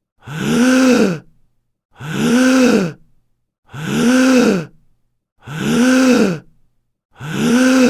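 A man's voiced gasp, a sharp intake of breath that rises and falls in pitch, repeated about every 1.7 seconds with silence between. Each repeat is identical.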